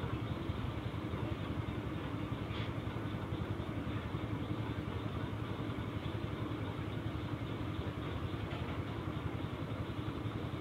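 A steady low mechanical hum of a running motor, unchanging in level.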